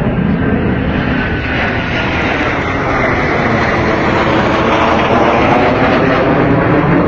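Jet engines of a formation of military jets flying over, a loud steady roar with a whine falling in pitch about a second in, swelling slightly as they pass.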